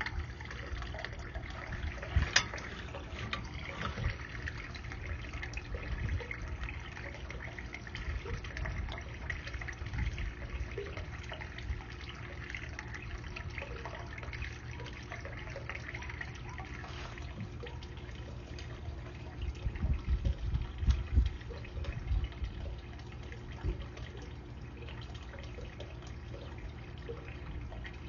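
Water trickling and splashing over a steady low hum, with scattered clicks and a cluster of louder knocks about twenty seconds in.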